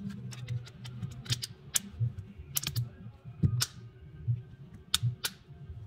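Sharp, irregular plastic clicks and taps as the parts of a Samsung A04 phone are handled and pressed together during reassembly, over a soft low repeating pulse.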